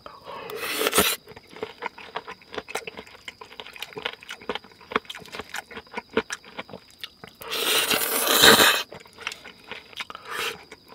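A person chewing a mouthful of raw beef yukhoe with abalone and pear, with many small mouth clicks. There is a louder rushing sound near the start and again about seven and a half seconds in, lasting about a second.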